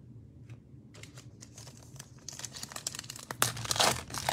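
Foil wrapper of an Illusions football trading-card pack being crinkled and torn open by hand. The crackling starts after about a second, and the loudest tearing comes near the end.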